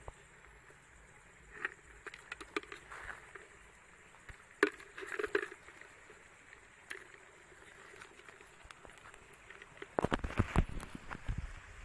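Scattered clicks and clatters of loose coral rubble and stones being shifted by hand and stick while searching for hermit crabs, with a run of louder low thumps and rustles near the end.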